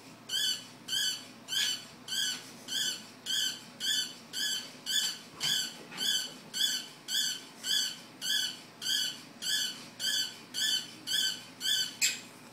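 Battery-powered toy robot dog giving a synthetic electronic yip over and over, about twenty identical short yips at a steady rate of nearly two a second. It ends in a sharp click near the end.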